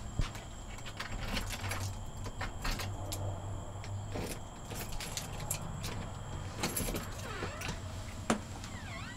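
A bunch of keys jangling and clicking against a door lock and knob as a door is unlocked: a run of short, irregular metallic clicks and rattles over a steady low hum.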